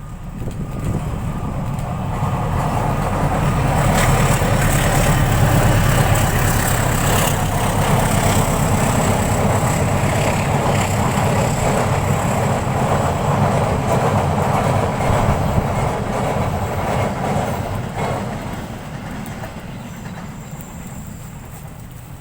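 A train passing by on the rails: the rumble and wheel noise build up over the first few seconds, stay loud with a few sharp clicks, then fade away from about three-quarters of the way through.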